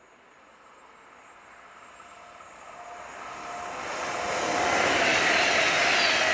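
Class 390 Pendolino electric train approaching at speed and passing close by. Its sound grows steadily louder over about five seconds, then holds as a loud rush of wheels on rail and air.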